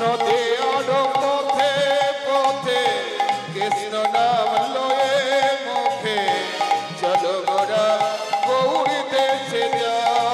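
Bengali kirtan music: a khol hand drum keeps a steady beat under a wavering, ornamented melody line.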